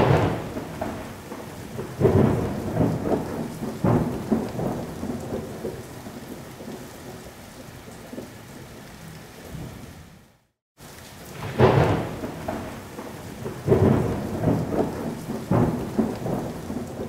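Thunderstorm: steady rain with several loud thunderclaps, each dying away in a long rumble. The sound breaks off for a moment about ten seconds in, then starts again with a sharp crack.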